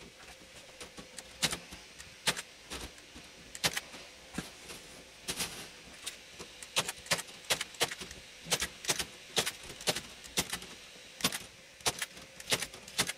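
Welded wire mesh being stapled to a wooden frame and trimmed: a run of sharp metallic clicks and snaps at irregular intervals, some in quick pairs, with the mesh rattling.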